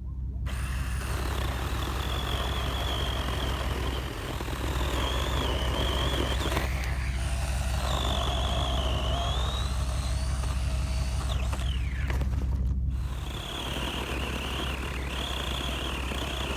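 24-volt cordless 6-inch mini chainsaw running and cutting through wood, its high electric-motor whine wavering and dipping in pitch as the chain takes the load, easing off briefly twice.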